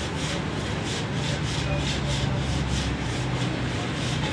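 Mitsubishi eK Wagon's three-cylinder engine being cranked on the starter motor with its spark plugs out, turning over in an even rhythmic chug of a few beats a second, for a compression test. The gauge on this cylinder then reads very low pressure.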